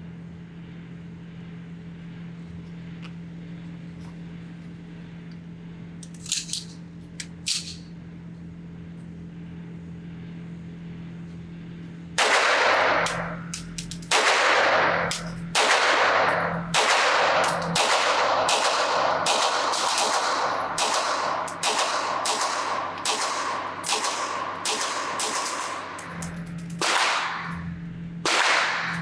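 9mm Fowler Industries Vanta 9 Ported MTO 2011-style pistol firing a magazine of +P hollow points: about twenty shots at a steady pace of one to two a second, starting about twelve seconds in. Before the shooting there is only a steady low hum and a couple of faint clicks.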